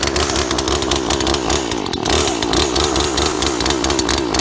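Chainsaw running at speed, its engine pitch wavering up and down.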